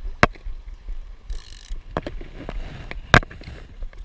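Fly rod and reel handling: sharp clicks and knocks, the loudest about three seconds in, and a short ratcheting buzz of the reel about a second and a half in. A steady low rumble runs under it.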